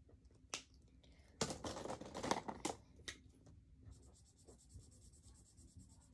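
A short, loud burst of paper rustling and handling, then a felt-tip marker scratching back and forth on paper in fast, even strokes while colouring in.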